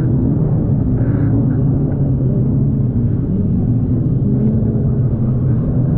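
Jet ski engine running at speed with a steady drone, its pitch wavering a little, under rushing water and spray as the craft crosses choppy wake.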